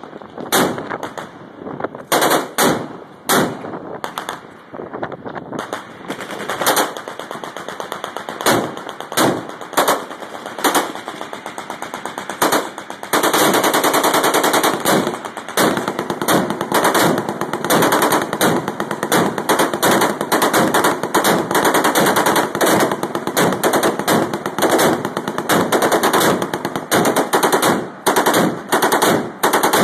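Shipboard machine guns firing repeated short bursts of rapid shots. About 13 seconds in, the fire runs on without a break for about two seconds.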